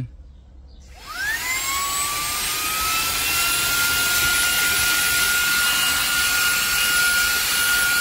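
VSGO cordless handheld vacuum switched on about a second in: its small high-speed motor whines up in pitch over about two seconds, then runs steadily at a high whine with a loud rush of air. The brush nozzle is worked over the fabric car seat.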